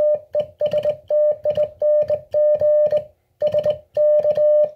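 CW sidetone from an Elecraft KX2 transceiver, keyed by hand on a straight key: a steady beep switched on and off in short dots and longer dashes of Morse code. Each element is edged by the click of the key's lever on its contacts.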